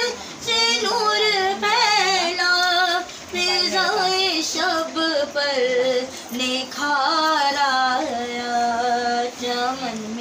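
A woman's solo voice singing a devotional naat with no instruments, in phrases of long held notes that waver and turn, with short breaths between them.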